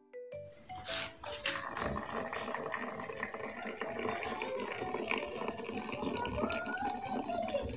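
Coffee poured in a thin stream from a jebena, a clay coffee pot, into small cups: a steady splashing of liquid, with a pitch that rises near the end as a cup fills.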